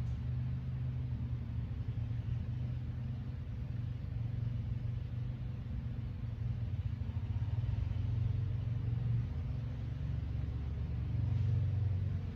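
Steady low rumble with a faint steady hum underneath, swelling slightly a couple of times.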